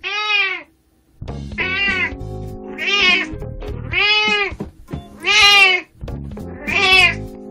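An 18-year-old house cat meowing six times in a row, each meow a short call that rises and falls in pitch, over quiet background guitar music.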